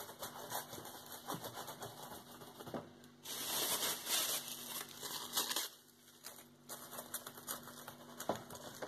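Tissue paper crinkling and rustling as it is pressed and smoothed by hand onto a glued cardboard cereal box, with many small crackles and a louder hissy rustle for a couple of seconds in the middle.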